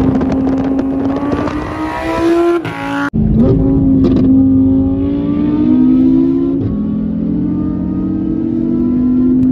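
Sports car engine under hard acceleration, its note climbing for about three seconds before breaking off suddenly. It then pulls steadily at motorway speed, rising slowly and dropping once about two-thirds of the way through as it shifts up a gear.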